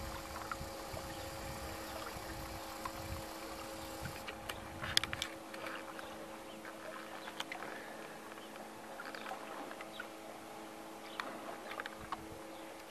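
Wind buffeting the microphone by open water, with a faint steady hum and a few scattered small clicks; the wind rumble cuts out about five seconds in.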